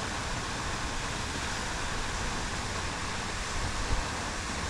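Steady rushing hiss of a pond fountain's spray, with wind buffeting the microphone in uneven low rumbles and one stronger gust a little before the end.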